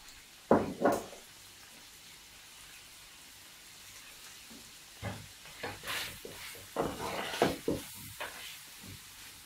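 Chicken hearts frying in a pan with a faint, steady sizzle. There are two sharp clinks about half a second in, and a run of spoon clinks and scrapes against the pan from about five seconds in.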